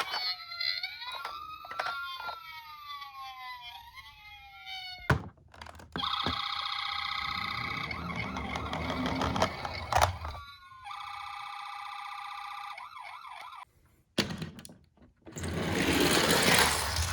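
Several toy ambulance sirens wailing over one another, rising and falling, with small clicks and knocks of toy cars. After a sharp knock about five seconds in, an electronic siren tone sounds steadily over a low rumble, and then another. Near the end comes a loud burst of noise.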